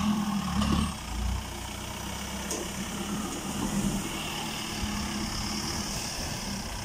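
Off-road 4x4 pickup's engine running under load as it climbs a muddy riverbank. It is louder for about the first second, then settles to a steady, even run.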